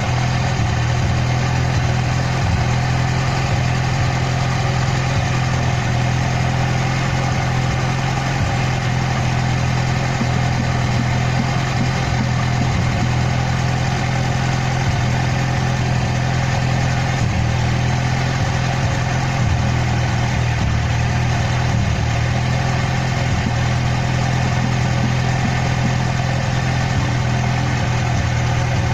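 Car driving, with a steady engine and road drone.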